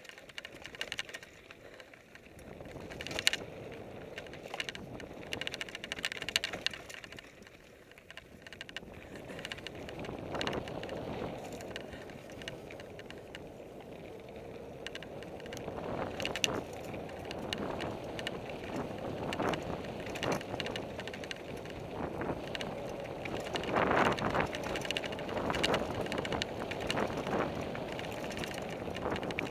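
Fuji Thrill LTX mountain bike descending a dirt singletrack at speed: tyres rumbling over the trail, and the bike rattling and knocking over bumps and roots, growing louder from about ten seconds in.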